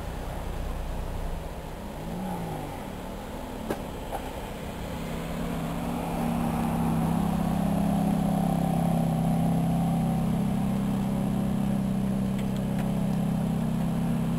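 Ferrari F430's V8 engine running at idle, quieter at first with a short rise and fall in pitch about two seconds in, then steady and louder close behind its tailpipes from about six seconds in.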